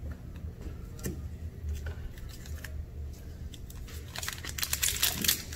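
A few light clicks and rustles of trading cards being squared into a stack, then the foil wrapper of a Yu-Gi-Oh Legendary Duelists booster pack crinkling as it is picked up and handled, densest in the last second and a half.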